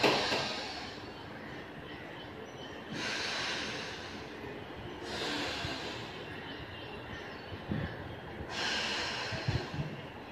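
Slow, deep breaths drawn in and pushed out through the nose with one nostril held shut, as in alternate-nostril pranayama breathing. Several long, hissing breaths of about two seconds each.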